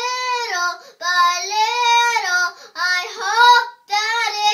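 A young girl singing a children's song unaccompanied, in sustained sung phrases broken by short breaths.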